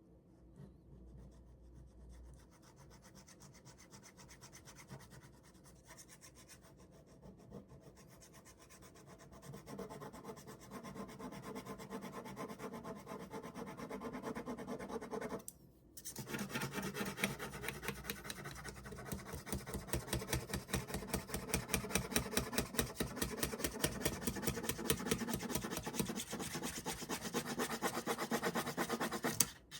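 Ballpoint pen scratching on paper in quick back-and-forth shading strokes. It gets louder partway through and stops briefly about halfway.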